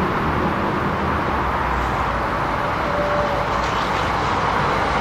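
Metro-North electric multiple-unit commuter train coming slowly into the station: a steady rumble of wheels and motors.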